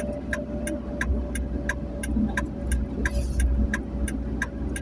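Inside a moving ambulance: steady low engine and road rumble, with the turn-signal indicator ticking evenly about three times a second.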